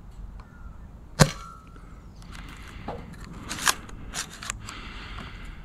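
A ZWQ S200 Nerf pistol shot: one sharp crack about a second in with a short ring after it, then a few lighter clicks as the foam dart strikes near the target.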